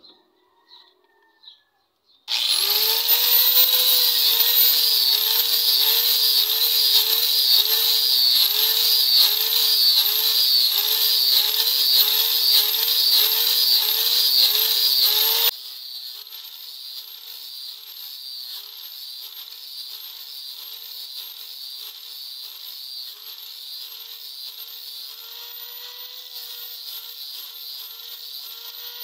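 An angle grinder with a sanding disc starts about two seconds in and runs loud, sanding a wooden knife handle. Its whine rises and dips in pitch in a steady rhythm as it is worked against the wood. About halfway through the level drops sharply, and the grinder carries on quieter.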